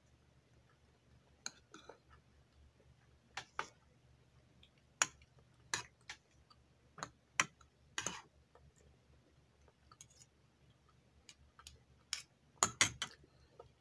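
Metal spoon and fork clinking and scraping against bowls, mixed with chewing, as scattered sharp clicks with a quick cluster of them near the end.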